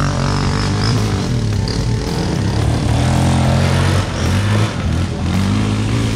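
ATV engine running and revving, its pitch rising and falling as the throttle is worked.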